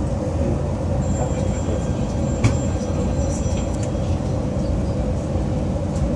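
Steady running rumble of a moving train heard from inside a carriage, with a faint high whine for a few seconds in the middle and a couple of sharp clicks.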